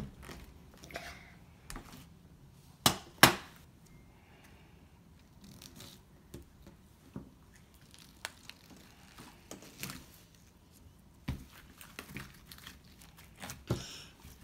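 Sticky slime being handled, pulled and pressed, with scattered sharp snaps and taps; the two loudest come close together about three seconds in.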